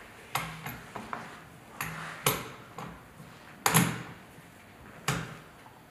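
Handling noise from a diamond core drill motor's spindle as its anti-friction ring is worked by hand: about six sharp metal clicks and clinks at uneven intervals, the loudest a little past the middle.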